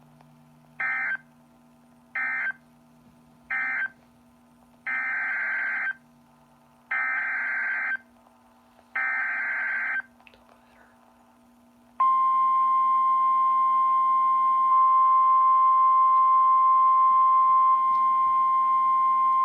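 Emergency Alert System data bursts: three short end-of-message bursts close the severe thunderstorm warning. Three longer header bursts follow for the next warning, a special marine warning. About twelve seconds in, a loud, steady warning alarm tone starts and holds.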